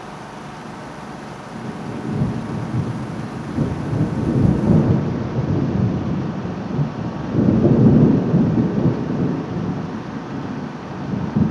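Thunder rolling over steady rain, the rumble building about two seconds in and swelling in long waves, with its loudest peak a little past the middle.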